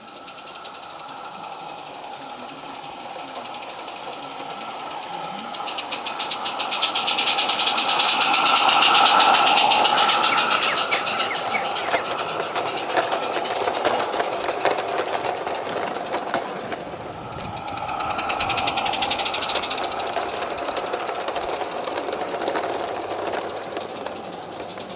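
Garden-scale live steam locomotive hauling a train of small wagons past: a rapid exhaust beat and steam hiss with the wheels rattling along the track. It is loudest about eight seconds in, fades, and swells again near twenty seconds.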